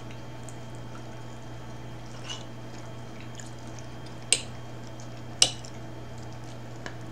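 A person chewing lasagna with her mouth closed, with faint wet mouth clicks and two sharper clicks about four and five and a half seconds in, over a steady low hum.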